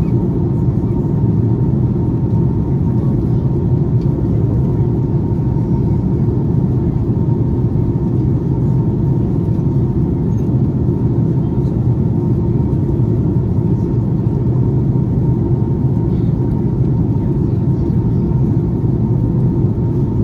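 Steady low rumble of an Airbus A330-200 passenger cabin in flight: engine and airflow noise, with a faint steady whine above it.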